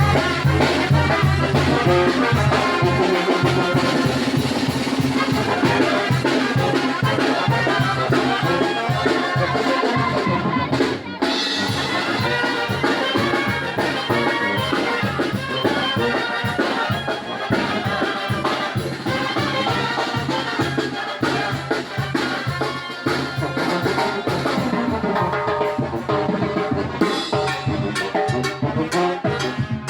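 A brass band playing a chilena, trumpets and trombones over drums, with a brief drop in the music about eleven seconds in.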